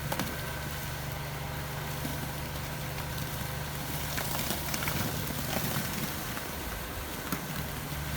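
An engine idling steadily, with scattered light clicks and knocks over it.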